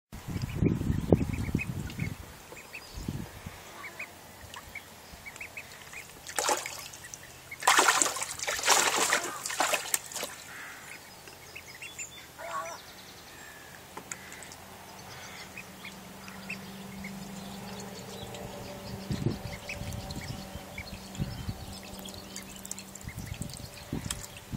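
Two-week-old Call ducklings calling with many short, faint calls, with a few loud noisy bursts about seven to ten seconds in and a low rumble in the first two seconds.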